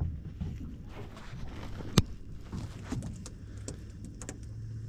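Scattered light clicks and knocks, with one sharp click about two seconds in, over a low steady hum.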